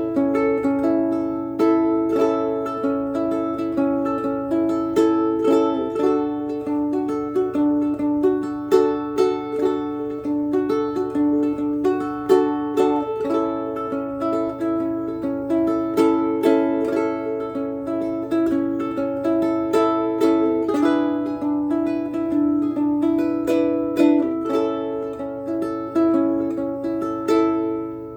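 Ko'olau KC-10 ukulele strung with aNueNue Clearwater strings, played solo: a melody of plucked notes over chords, dying away near the end.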